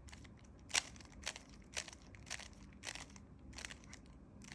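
Rubik's Cube's plastic layers snapping round under finger-trick turns of the top face (U2 moves): a series of sharp clicks, about two a second, the loudest a little under a second in.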